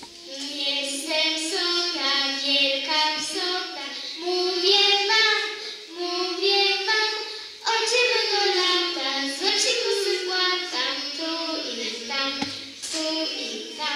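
A child singing a song, the melody moving from note to note with short breaks between phrases, with no instruments heard alongside.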